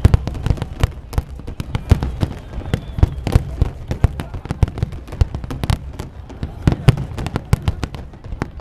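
Fireworks going off in a rapid, irregular barrage: many sharp bangs and cracks every second over a low rumble.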